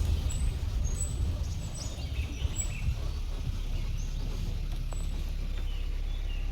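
Birds calling in short, high chirps, coming quickly in the first half and thinning out later, over a steady low rumble.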